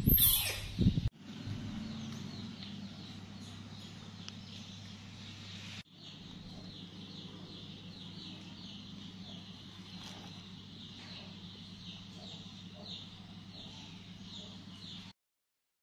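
Birds chirping over and over in quick high notes above a steady low hum. A brief loud shrill sound opens it and cuts off about a second in.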